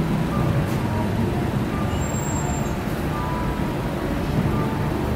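City street ambience: a steady rumble of road traffic with vehicles running past and a faint murmur of voices.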